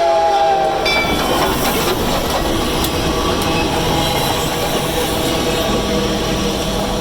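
Steam locomotive whistle, several notes sounding together, cutting off about a second in; then the steam-hauled train running past, a loud steady rumble and clatter of wheels on rail.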